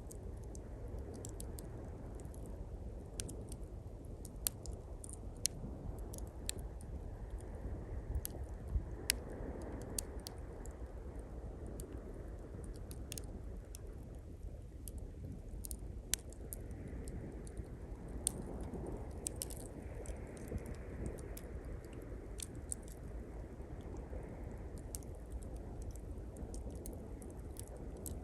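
Small campfire of pine twigs crackling, with frequent sharp pops and snaps, over a steady low rush of waves washing on the shore that swells a couple of times.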